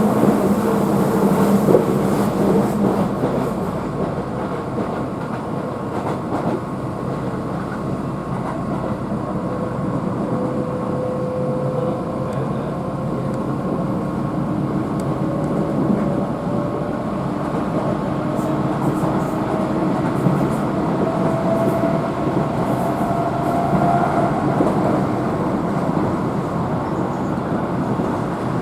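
Keihan electric train running, heard from inside the carriage: a steady rumble of wheels on rail. Partway through, the traction motors' whine rises steadily in pitch as the train picks up speed.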